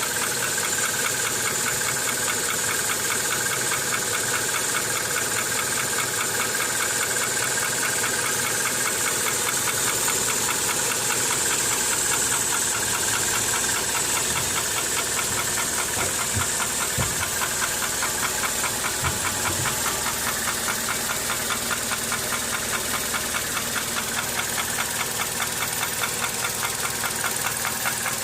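Toyota 7A-FE 1.8-litre inline-four petrol engine running with a steady, rhythmic knock that repeats evenly with engine speed: piston knock from a worn piston in the fourth cylinder.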